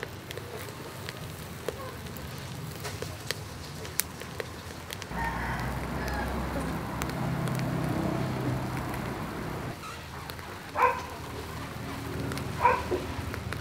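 Clams and egg sizzling in their shells over a charcoal grill, with the coals crackling in scattered ticks. About five seconds in a low rumble comes up for several seconds, and near the end there are two short, sharp calls.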